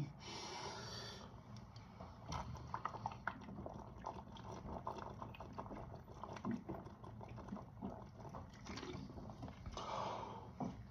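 Faint, irregular wet crackling and clicking of liquid, steady in level with small ticks scattered throughout.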